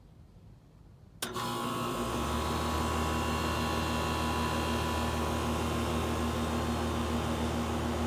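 2001 Carrier 38CKC air-conditioner condenser unit starting up about a second in: a sudden sharp start, then the unit running with a steady hum and a few steady tones, its low hum filling in a moment later.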